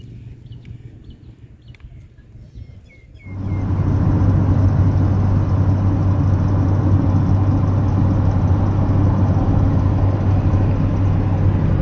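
Steady road and engine noise inside a moving car, with a low hum and tyre rumble. It starts suddenly about three seconds in, after a quieter stretch with a few short chirps and clicks.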